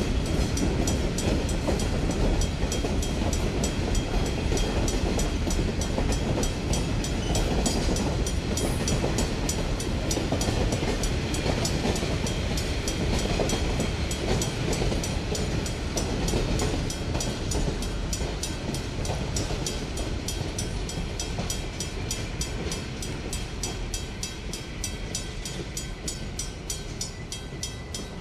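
A freight train rolling by: steady rumble of wheels on rail with a fast, regular clicking, slowly fading over the second half.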